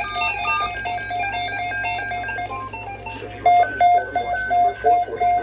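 Synthesizer music with a quick melody. About three and a half seconds in it gives way to a rapid electronic alarm beeping that alternates between a low and a high tone, about three beeps a second.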